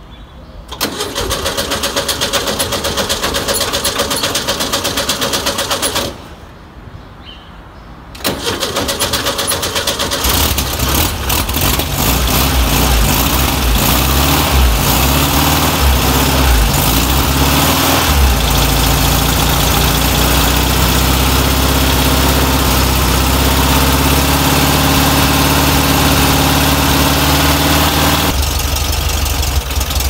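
Air-cooled flat-four engine of a VW T2 bus being cranked by the starter twice, the first attempt lasting about five seconds. It catches about ten seconds in and runs, unevenly at first and then settling to a steadier idle.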